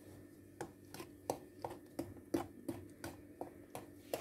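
Wooden spoon stirring a stiff, thickened soap paste in a metal pot, clicking against the pot in a string of uneven knocks about three a second.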